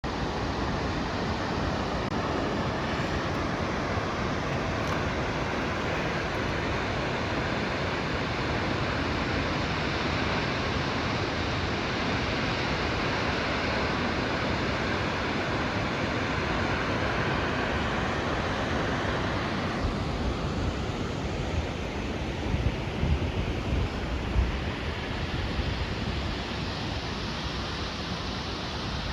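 Shōmyō Falls, a tall waterfall, giving a steady, dense rush of falling water. About two-thirds of the way through the rush thins in its upper range and low buffeting of wind on the microphone comes in.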